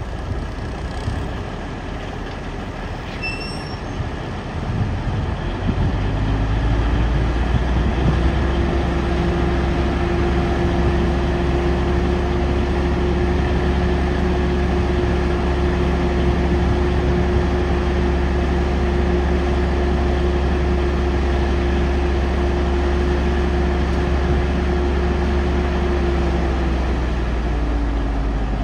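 1995 International F9370 dump truck's diesel engine idling, then speeding up about five seconds in to a steady higher drone as it drives the hydraulics that raise the dump bed. The drone falls away near the end.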